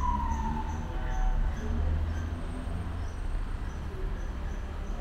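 Low steady rumble of vehicles, with a single falling tone that glides down and dies away in the first second. Faint short high pips repeat at an even pace, two or three a second.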